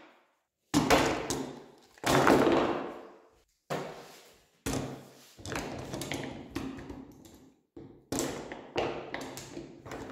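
Steel pliers and snips dropped one after another onto a plywood workbench, each landing with a clattering knock of metal on wood and on the other tools, with a short ringing tail. About a dozen impacts, coming faster in the second half.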